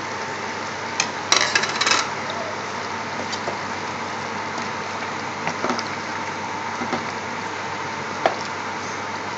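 Wooden spoon stirring a simmering curry in a stainless steel pot, knocking and scraping against the pot in a quick cluster about a second in and a few single times later, over the steady bubbling of the simmer.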